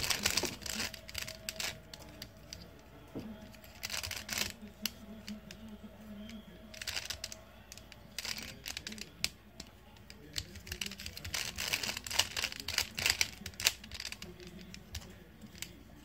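Rubik's cube being twisted by hand: irregular runs of quick plastic clicks and clacks as its layers turn, with short pauses between the runs.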